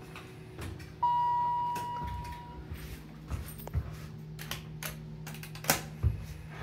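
Dover hydraulic elevator's chime: a single ding about a second in that rings out and fades over about a second and a half, over a steady low hum in the car. A few clicks follow, the sharpest near the end.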